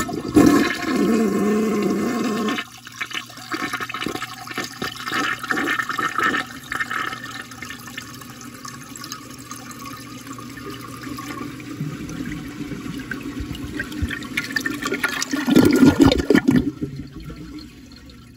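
1986 American Standard Cadet toilet flushing, heard from inside the bowl. A loud rush of water comes in the first couple of seconds, then a swirling drain with gurgles. About fifteen seconds in there is a loud gurgle as the siphon breaks and air is drawn into the trapway.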